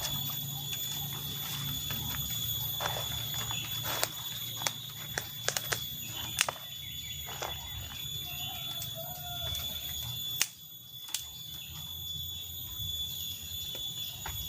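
Sharp snaps and clicks of twigs and firewood being handled while a cooking fire is built: a cluster of them between about four and six and a half seconds in, and two more near eleven seconds. A steady high-pitched whine and a low hum run underneath.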